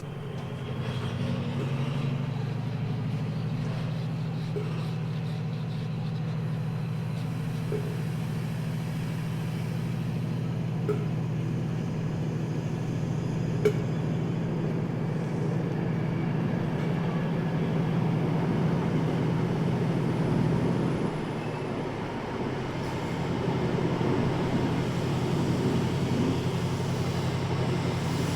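Chiltern Railways Class 68-hauled Mk3 train running, a steady low drone with even running noise over it and two short sharp clicks partway through.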